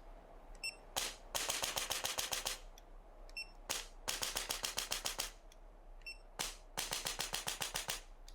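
Electric chiropractic adjusting instrument firing along the spine in three bursts of rapid clicking impulses, each about a second and a half long at roughly eight strokes a second, with a short faint high tone before each burst.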